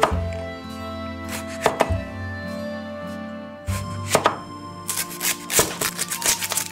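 Crisp crunching of deep-fried, Doritos-coated seafood close to the microphone, over background music. There are a few sharp crunches early on, then a quick run of them in the second half.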